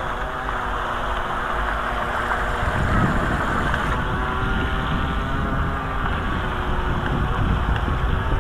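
Wind buffeting the microphone, with a faint, steady hum underneath.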